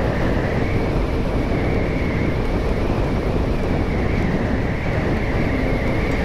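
Steady road and wind noise from a moving vehicle, with a faint constant high whine.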